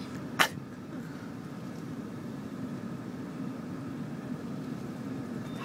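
Car engine running steady and low, heard from inside the cabin as the car creeps forward, with one sharp click about half a second in.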